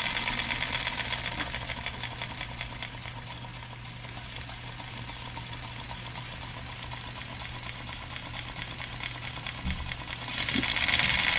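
Six-cylinder compressed-air radial model engine running, its exhaust puffing in a very fast, even patter with a hiss of escaping air. It gets quieter over the first few seconds, then louder again about ten seconds in.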